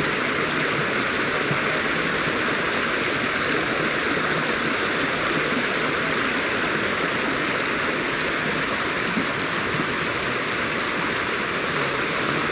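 River water rushing steadily over rocks: a constant, even flow with no breaks.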